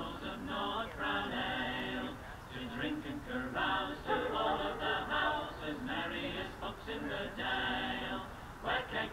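Voices singing a slow, chant-like song, phrase after phrase with short breaks between.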